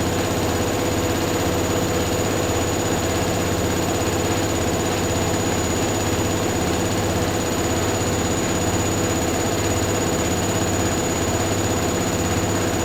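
Two washing machines, a Hoover Dynamic Next DXA610IW3 and a Whirlpool AWM1850, running their spin cycles at the same time. Their drums give a steady hum with a regular low throb underneath.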